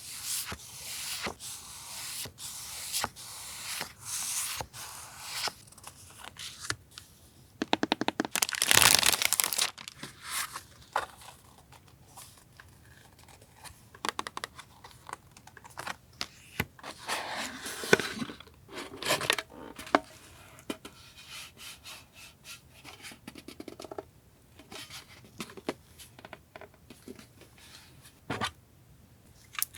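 Paper stationery being handled close up: rustling, crinkling and light taps, with a longer, louder crinkling or tearing stretch about eight seconds in and another around eighteen seconds.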